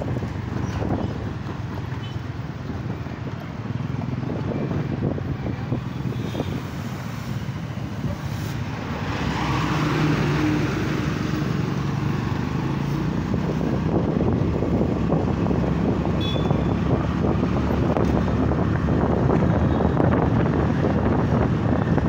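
Motorcycle engine running steadily while riding in town traffic, with wind buffeting the microphone. The wind noise and overall level grow louder about halfway through.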